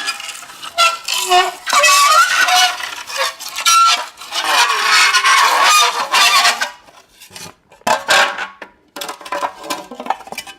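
Metal against dry ice squealing and shrieking: wavering, honk-like squeals over a hiss, dropping off for a moment about two-thirds of the way through before starting again.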